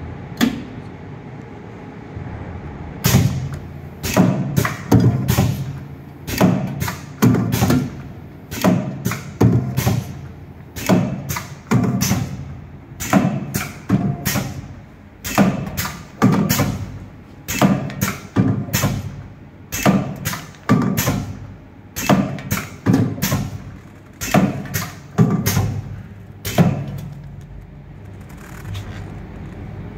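HighTex 828CS automatic hot-knife webbing cutter running a cutting cycle on polyester webbing. The rollers feed a length and the heated blade strokes down to cut it, making a sharp thump about once a second over a steady low hum. The strokes start about three seconds in and stop near the end.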